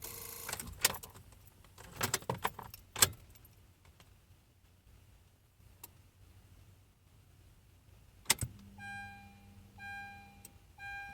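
Car keys jangle and click in the first three seconds, then a sharp click comes about eight seconds in. Near the end the 2014 Honda CR-V's electronic warning chime sounds three times, about a second apart.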